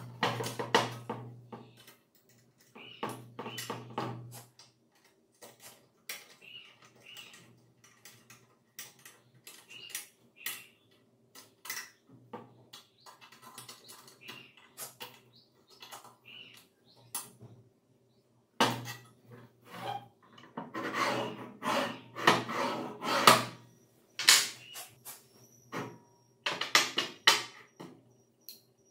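Metal clicks, knocks and clatter of bolts, nuts and tools being handled while the metal sliding stand of an angle grinder stand is fitted and bolted to its base. Scattered single clicks, with denser bursts of rattling.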